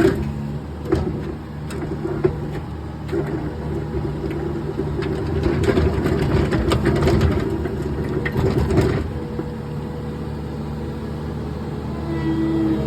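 Tracked skid steer's engine running steadily while it drives a trencher attachment. A louder spell of knocks and clatter comes from about five to nine seconds in, from the trencher chain working through the ground.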